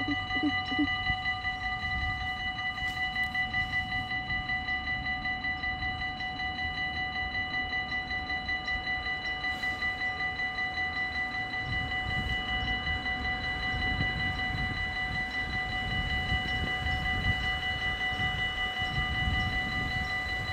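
Dutch level-crossing warning bells ringing with rapid, even strikes while the crossing is closed for an approaching train. A low rumble builds in the second half.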